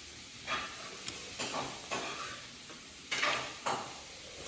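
Close-up eating sounds from a mukbang of momo: about six short, separate wet chewing and smacking noises, spaced irregularly, with a light scrape of utensils on a plate.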